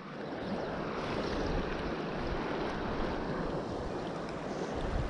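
Steady rush of river water flowing over a riffle, with wind rumbling on the microphone.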